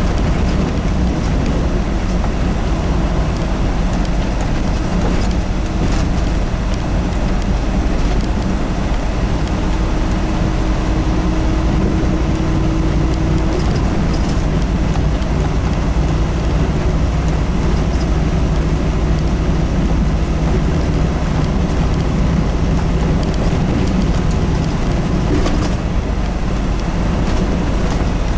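Semi-truck on the highway: steady engine drone and road noise, with light rattles and clicks now and then.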